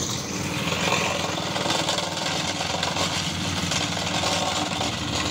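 Vibratory plate compactor running, its small engine and vibrating plate making a steady, rapid pulsing as it tamps down a loose sand base.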